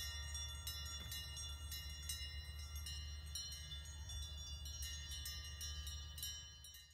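Cowbells ringing irregularly as grazing cows move, many overlapping clanks that each leave a ringing tone, over a steady low rumble; the sound fades out near the end.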